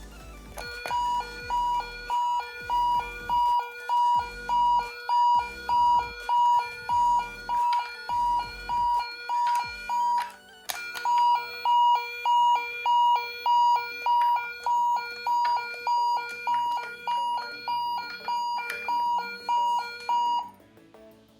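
Toy ambulance's electronic two-tone siren, a hi-lo "pee-po" repeating about twice a second. It breaks off briefly about ten seconds in, resumes, and stops just before the end, with intermittent low rumbling under the first half.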